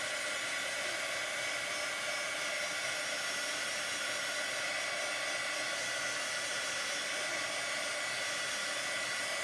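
Handheld hot-air dryer blowing steadily with a high whine, drying freshly applied chalk paste.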